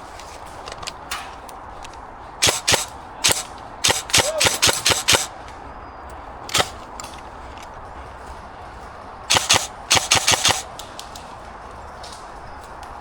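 Airsoft guns firing: sharp pops, a few single shots, then two quick strings of rapid shots, one about four seconds in and one near ten seconds.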